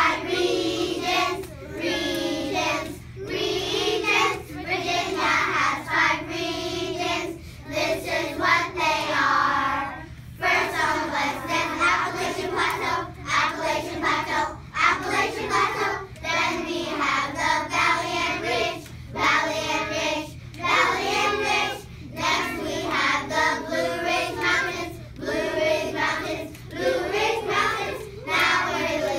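A class of young children singing together as a group, in short sung phrases with brief gaps between them.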